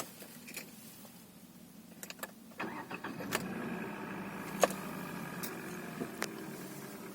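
Hyundai Solaris 1.6 four-cylinder petrol engine started from cold: a few clicks, then about two and a half seconds in it starts and runs steadily at idle. Sharp clicks stand out over the running engine, a clear knock by the owner's account.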